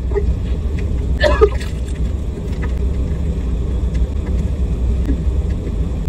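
Steady low rumble, with a short vocal cry about a second in.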